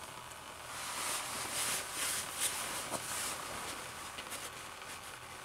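Engine oil dripping and trickling from the front of a Toyota Camry engine into a catch pan, a faint sizzling patter from the oil pump area. A sharp tick sounds about three seconds in.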